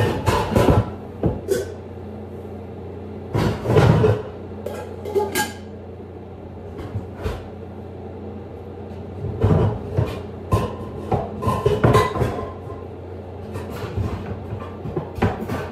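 Pots and pans clattering and a cupboard door being worked while rummaging for a small saucepan: clusters of knocks and metallic clinks, some ringing briefly, with pauses between them. A steady low hum runs underneath.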